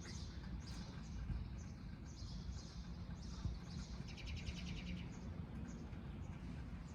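Small birds chirping over and over, short high chirps coming every half second or so, with a rapid buzzy trill about four seconds in.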